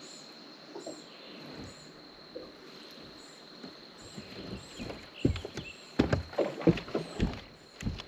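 A run of loud, sudden knocks and thumps from about five seconds in, as an angler on a bass boat works a hooked bass at the boat.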